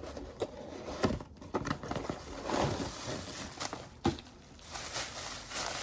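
Plastic and cardboard packaging crinkling and rustling as a boxed hot air brush is unpacked, with a couple of sharp knocks.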